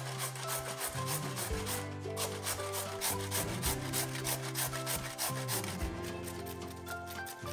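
Vegetables being shredded with quick, evenly repeated strokes, several a second, over soft background music.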